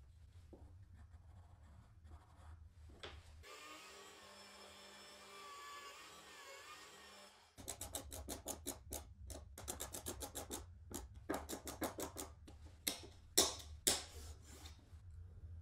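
A hand tool scraping on wood in quick repeated strokes, several a second, starting about halfway through over a low steady hum, with a couple of louder strokes near the end.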